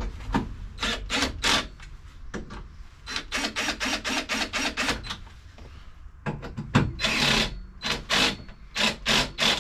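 Cordless drill run in short bursts, driving the original screws through a steel seat swivel plate into the seat base. It makes rapid runs of clicking and rasping, stopping and starting several times.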